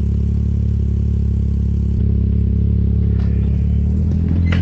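Polaris RZR side-by-side engine running at idle. Its note changes about two seconds in and rises near the end as the machine pulls away. A short clatter comes just before the end.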